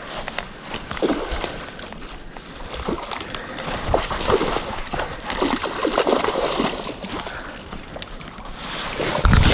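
Hooked largemouth bass splashing in shallow creek water as it is fought, with scattered clicks and scuffles. A heavy thump comes near the end.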